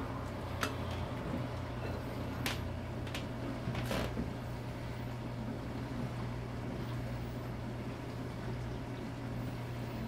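A metal spoon clinking a few times against a glass bowl while melted chocolate is scooped out and spooned into mini muffin cups, over a steady low hum.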